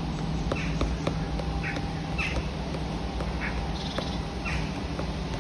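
Compressed charcoal scratching on sketchbook paper in short, quick strokes, roughly one or two a second, as leaves are dabbed in with small twisting marks. A low steady hum sits underneath.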